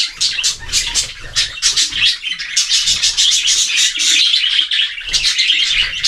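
A flock of budgerigars chattering, a dense run of quick overlapping chirps and warbles with no break.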